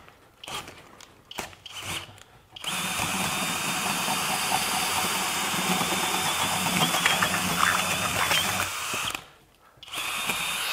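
FLEX FX1271T 24-volt cordless hammer drill in speed one boring a 2 9/16-inch self-feed bit into a pressure-treated wood post. A few short trigger bursts come first, then about six seconds of steady drilling with a high motor whine. It stops near the end, then runs again briefly.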